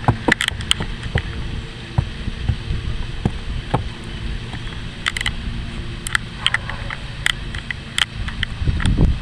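A horse's hooves stepping onto, across and off a low wooden platform: scattered sharp knocks, roughly one every second or so, with wind rumbling on the microphone near the end.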